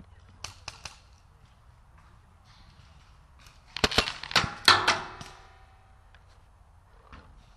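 Paintball markers firing: three or four fainter pops about half a second in, then a quick loud string of about half a dozen shots near the middle.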